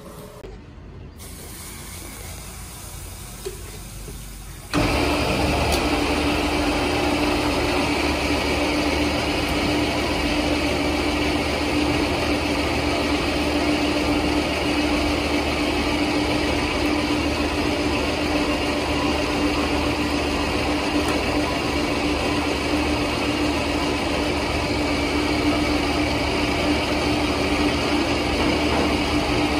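Workshop machinery running steadily: an even mechanical noise with a constant low hum, which starts suddenly about five seconds in and then holds unchanged.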